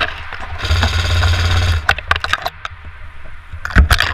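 Airsoft electric rifle (AEG) firing a full-auto burst of just over a second, a rapid buzzing stream of shots, followed by scattered sharp clicks and one loud knock near the end.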